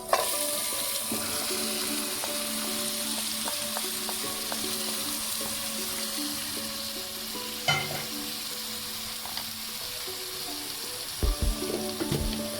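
Marinated chicken pieces hitting hot coconut oil and fried crushed chilli in a pan, starting to sizzle at once and frying with a steady hiss. There is a single knock about three-quarters of the way in and a few more knocks near the end.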